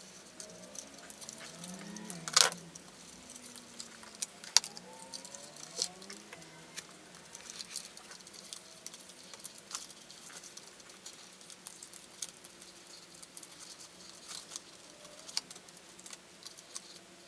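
Light clicks, taps and rattles of small plastic and metal parts being handled while wires are fed through an RC car chassis to its receiver box, with a sharper click about two seconds in and another near five seconds.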